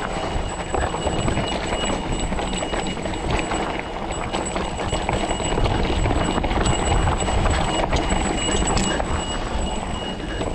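Steady rumble of wind and rough clattering from riding a bike over a rocky mountain trail, recorded on the moving bike, with a faint steady high whine throughout.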